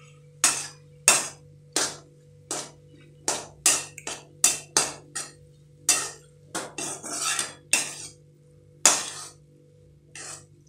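Metal spatula knocking and scraping against a metal kadhai while stirring a dry spinach stir-fry. The clanks are sharp and irregular, about one or two a second, with a longer scrape a little past the middle.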